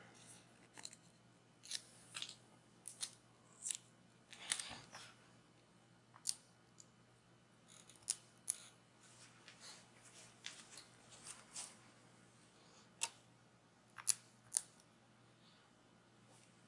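Faint, scattered crackles and short rustles, a dozen or so, from handling dust-removal stickers and their plastic backing, with one longer rustle about four and a half seconds in.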